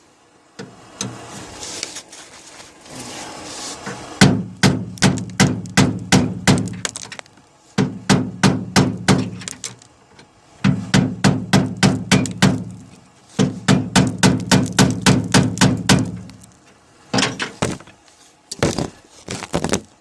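A hammer rapidly striking metal, about four or five blows a second in runs of a few seconds with short pauses between. It is knocking loose a heated extractor stuck in a Ford F-150's spare-tire lock, which pops free.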